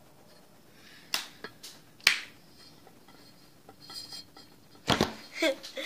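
Green slime being stretched and squeezed by hand, giving a few sharp popping clicks, then a louder slap near the end as it lands on the table.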